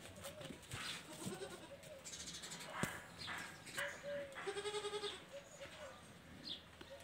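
Goat kid bleating: one wavering, quavering bleat about halfway through, with shorter calls before it.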